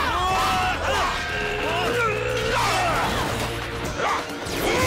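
Action music under a staged fight, with several weapon clashes and hits.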